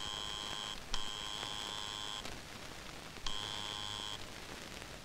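Electric doorbell buzzer ringing three times: a short ring, a longer ring, then after a pause another short ring, each a steady high-pitched electronic tone.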